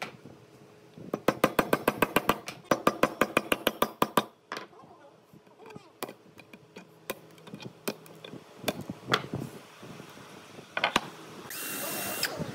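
Workshop tool sounds: a run of rapid clicking, about ten clicks a second for some three seconds, then scattered clicks and knocks, and near the end a brief whir of a power drill starting up.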